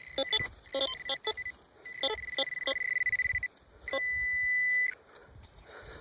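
A metal detector's high electronic tone signalling metal in the dig. It sounds in short broken beeps, then pulses rapidly, then holds solid for about a second, with sharp knocks mixed in during the first half.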